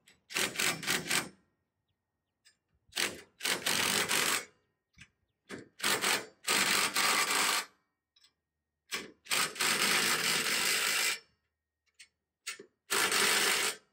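Cordless impact driver running in five bursts of one to two seconds with short pauses between, tightening the U-bolt nuts of a hitch anti-tilt clamp.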